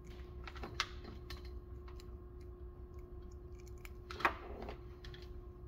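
Small plastic clicks and handling noise from multimeter test probes and alligator-clip leads being clipped together: a sharp click about a second in and a louder rattle of clicks about four seconds in, over a faint steady hum.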